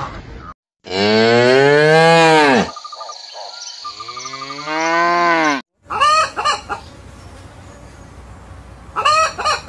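Cattle mooing: two long moos about a second apart, each rising then falling in pitch. Then a hen clucking in two short bursts of quick calls, the second near the end.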